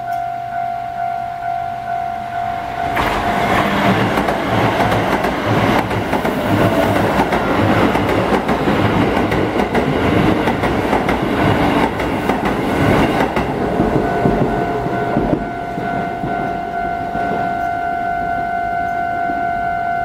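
Japanese level-crossing warning bell ringing in a steady, rapid ding-ding. From about 3 s to 15 s a commuter train passes close by, its wheels clattering rhythmically over the rail joints and nearly drowning the bell, which rings on alone afterward.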